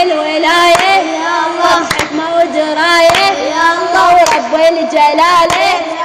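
A young female voice singing an Arabic religious nasheed in long, wavering melodic lines, with sharp percussive hits about once a second keeping the beat.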